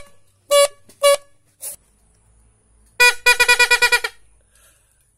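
Homemade torotot, a bamboo-tube toy horn with a leaf bell, blown in short buzzy toots about half a second apart, the last one weaker. About three seconds in, a plastic party torotot sounds a fast fluttering run of toots at a slightly lower pitch for about a second.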